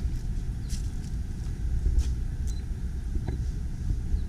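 A low, uneven rumble with a few faint ticks over it.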